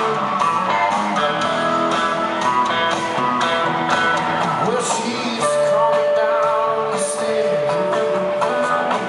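Live rock band playing, with electric guitars over electric bass and drums. About halfway through, one long note is held.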